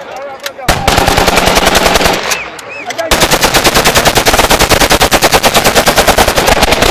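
Rapid automatic gunfire in long bursts of about ten shots a second: a short burst, a longer one, a pause of about a second, then a sustained burst from about three seconds in to the end.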